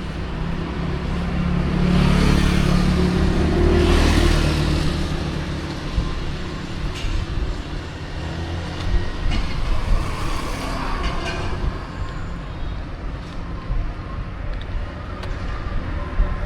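Road traffic: a motor vehicle's engine and tyres swell as it passes close by about two to four seconds in, then steady engine and road noise carries on, with a few sharp knocks.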